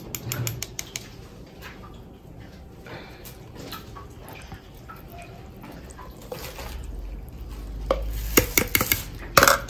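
Milk-and-egg batter liquid poured from a plastic measuring jug into a plastic bowl of flour and cornmeal, with light clicks of handling. Near the end, a run of sharp clicks and taps as a metal fork scrapes the last of the liquid out of the jug.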